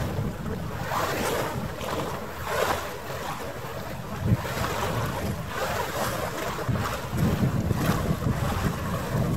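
Wind buffeting the microphone in gusts, over water lapping and splashing, with a brief thump about four seconds in.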